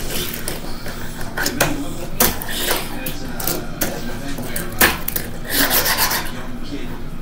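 Fingerboard rolling and scraping on a wooden board, with several sharp clacks as it hits the wood, the loudest nearly five seconds in.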